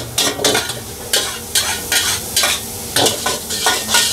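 Metal wok spatula scraping and tossing noodles around a steel wok, in strokes about twice a second, over a steady sizzle of the noodles frying on a high flame.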